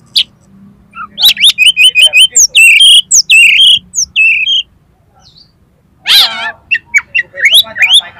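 Oriental magpie-robin (kacer) singing loudly. A fast run of short, sharp whistled notes comes first, then longer whistles. After a brief pause there is a rattling burst and more whistles near the end.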